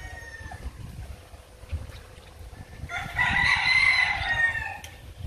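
A rooster crows once, about three seconds in: a single drawn-out call lasting just under two seconds.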